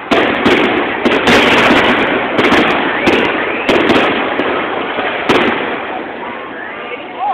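Aerial firework shells bursting in a rapid series of bangs and crackles, thinning out after about five seconds.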